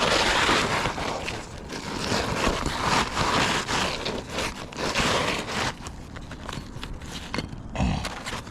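Rough scraping and crackling of hands and tools working on asphalt roof shingles, coming in uneven swells, with a duller thump near the end.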